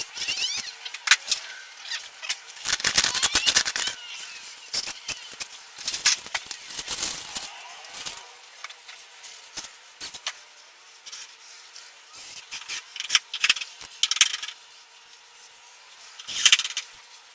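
Irregular clatter, clicks and scraping from hands-on work with tools and materials on a boat-building job, in uneven busy stretches with quieter gaps.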